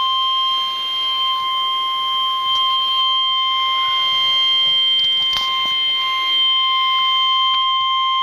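Weather-radio warning alarm tone: one steady, unbroken high tone that announces a tornado warning broadcast.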